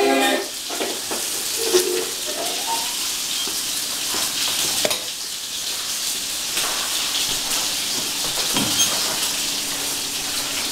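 Steady crackle and hiss of vinyl surface noise from an LP on an old cabinet record player, with no music playing and a few faint clicks.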